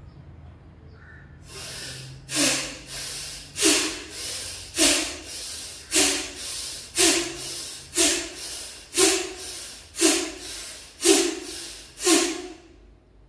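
Bhastrika pranayama (bellows breath): ten forceful exhalations about one a second, starting about two seconds in, each after a softer inhalation.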